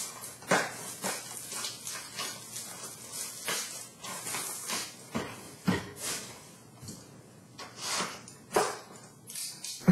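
Plastic shrink-wrap being torn and crinkled off a cardboard trading card box, in short irregular rustles, with a few light knocks as the box is handled and set down.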